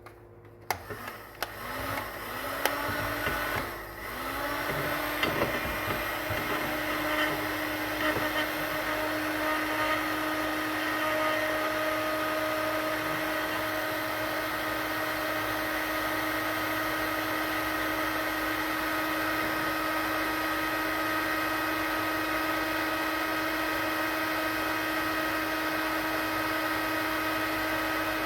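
Electric heat gun switched on, its fan motor spinning up with a rising whine a few times in the first seconds, then running steadily with a blowing hiss. It is heating a stubborn crankshaft bearing to loosen it.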